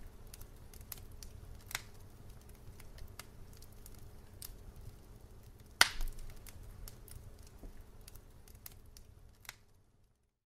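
Sparkler crackling, with irregular sharp pops over a steady low hum and one much louder crack about six seconds in. The sound stops just before the end.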